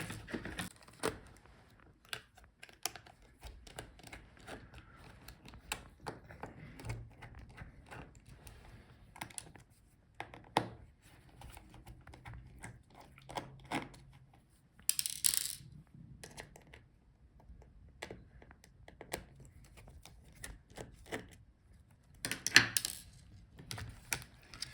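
Small screwdriver and tiny metal screws clicking and ticking as the battery screws are taken out of a laptop's chassis, scattered light taps throughout, with two louder brief rattles, one about fifteen seconds in and one near the end.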